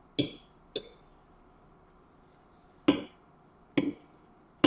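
Metal fork clinking and tapping against a plate while cutting and scooping up eggs and hash browns: five short, sharp clinks at uneven intervals.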